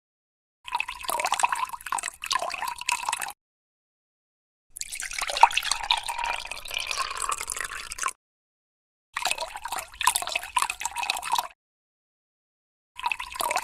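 Water poured into a glass in four separate pours, each a few seconds of splashing and trickling, with silent gaps between. The third pour, in the middle, is longer and splashier than the others.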